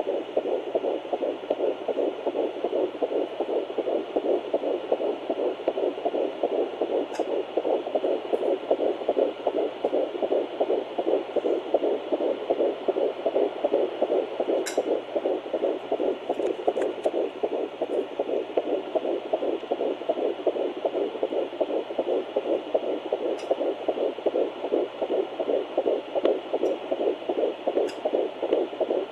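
Fetal heartbeat at 11 weeks 3 days heard through a Doppler ultrasound: fast, even pulsing over a steady hiss.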